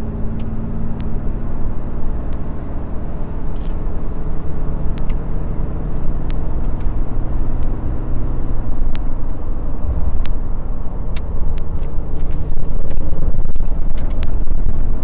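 Cab interior of a Ram 3500's 6.7-litre Cummins inline-six turbo-diesel pulling under throttle as the truck accelerates at highway speed, with turbo boost building. The engine and road noise grow louder over the last few seconds, with scattered sharp clicks.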